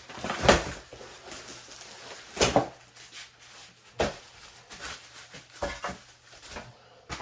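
Plastic fan parts and packaging being handled: a string of separate knocks and clatters as the base pieces of a tower fan are unpacked.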